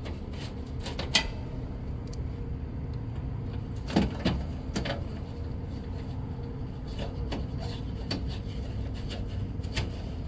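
Scattered light clicks and knocks from hands-on work with parts, the loudest a pair of knocks about four seconds in, over a steady low hum.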